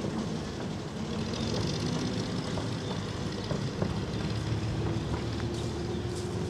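A 15-inch-gauge miniature railway train pulling away over the rails: a steady low rumble, with a faint steady hum coming in partway through.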